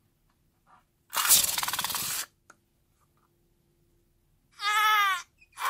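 A slime-filled rubber balloon with its end snipped open, emptying: about a second in, a second-long sputtering flutter as its contents force out; near the end, a short wavering squeal from the stretched rubber, followed by a rushing hiss.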